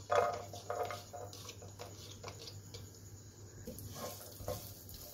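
Chopped onions dropping into a little hot oil in a nonstick pot, with a few soft knocks, then stirred with a wooden spoon. A faint sizzle builds toward the end as the onions start to fry over low heat.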